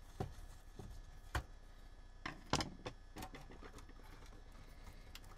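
A scattering of clicks and light knocks from a screwdriver and hands working the circuit board of a VEF 202 transistor radio loose in its case, over the first three seconds or so.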